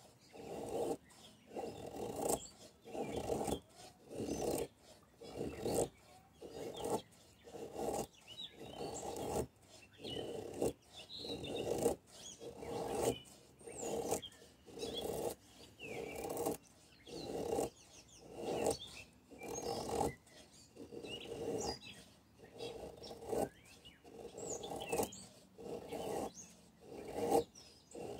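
ESEE RB3 knife blade shaving curls down a soft pine stick to make a feather stick: a steady rhythm of rasping scrapes, a little faster than one stroke a second.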